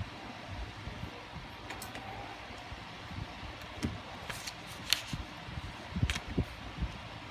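Light taps, thumps and a few sharp clicks of hands handling scissors, a plastic drinking straw and card on a tabletop, over a steady background hiss.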